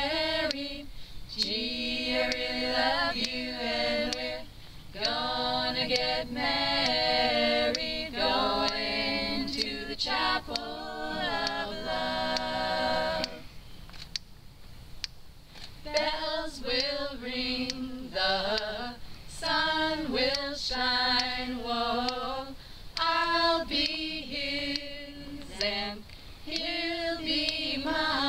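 A small group of women singing a cappella in harmony, with a brief pause about halfway through before the singing resumes.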